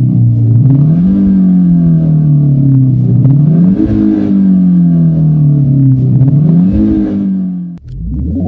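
Engine note of a Renault Clio RS Monaco GP revving up quickly and sinking slowly back three times, then cutting off abruptly near the end.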